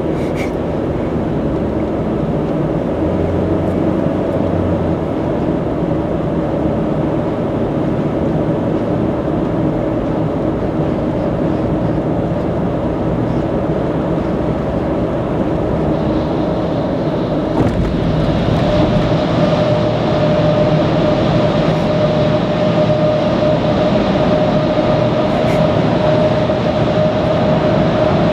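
Steady road and engine noise inside a car cruising on an expressway: tyre rumble and drone, with a faint steady hum that grows a little louder a little past two-thirds of the way through.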